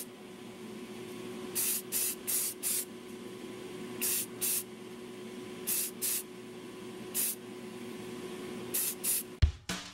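Rust-Oleum aerosol spray-paint cans sprayed at small plastic model parts. About eleven quick hisses, mostly in pairs, sound over a steady low hum.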